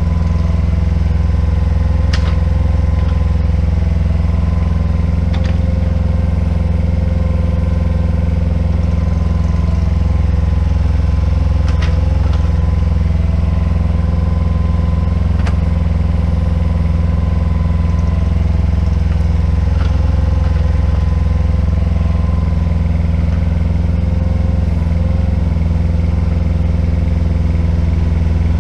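IHI 9VX-3 mini excavator's small diesel engine running steadily under load as it digs, with about four short sharp knocks scattered through.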